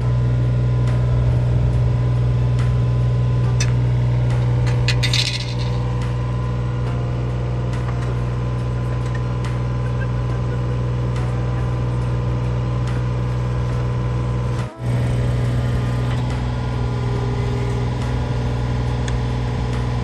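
Engine of a small tracked soil-sampling boring rig running steadily, with scattered metallic clinks from the rods and tools and a short run of high clattering about five seconds in.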